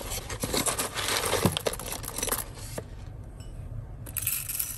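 Paper coffee-bean bag crinkling as a metal measuring spoon scoops whole beans and tips them into a Kalita hand grinder's hopper, with the beans rattling and clicking. The crinkling dies down about three seconds in and comes again briefly near the end.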